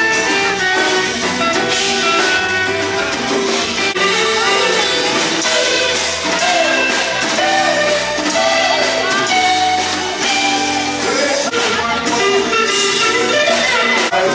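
Music with singing and guitar.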